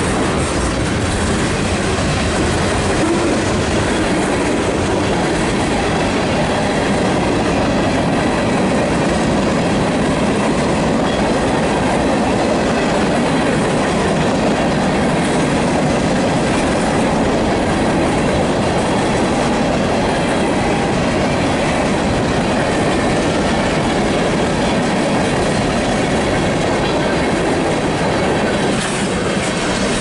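Loaded manifest freight cars (tank cars, covered hoppers and boxcars) rolling past at track speed: a steady rumble with the clatter of steel wheels over the rails.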